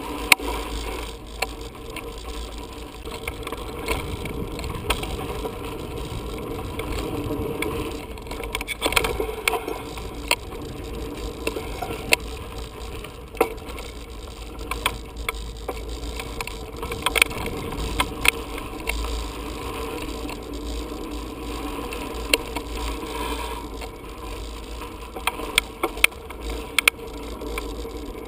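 Cannondale Rize mountain bike rolling over a dirt pump track: the chain and freewheel rattle and click irregularly over the bumps, over a steady low rumble.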